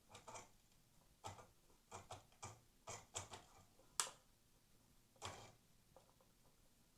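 Jouef HO-scale TGV model train on the track with the power on, giving only faint, irregular clicks and ticks instead of steady running: it is stuttering and not running properly.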